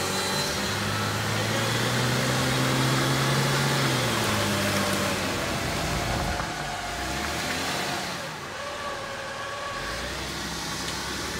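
1996 Lexus LX450's 4.5-litre inline-six engine revving under load as the truck claws up through deep mud, its pitch held, then dropping and rising again.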